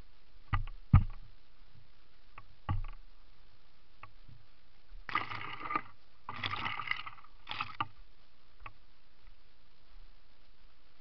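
Mountain bike descending a leaf-covered dirt trail, heard from a camera mounted on the bike. There are sharp knocks and clatters from the bike over roots and bumps, two close together about a second in and another near three seconds, then three short bursts of scraping noise from the tyres in the middle.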